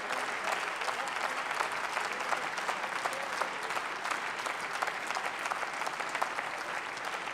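Applause from a large group of parliamentarians: dense, steady clapping from many hands.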